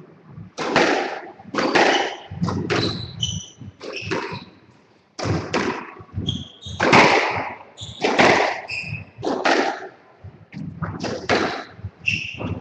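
A squash rally: the ball cracks off rackets and the walls about once a second, with short, high shoe squeaks on the wooden court floor between the hits.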